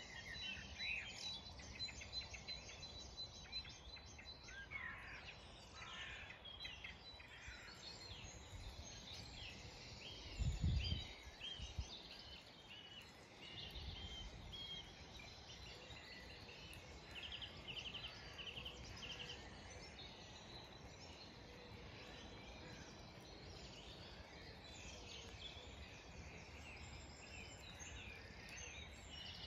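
Faint spring dawn chorus: many songbirds singing and calling at once, in overlapping chirps, whistles and quick trills. About ten seconds in there is one brief low thump.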